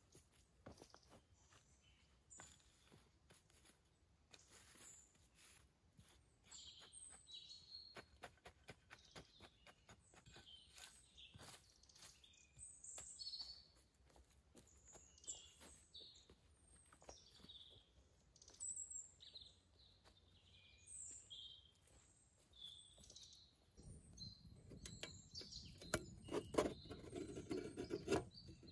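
Songbirds chirping and whistling in woodland, with light rustles and clicks of footsteps and branches on leaf litter. Near the end, louder close clicks and knocks as the metal frame of a hurricane lantern is handled.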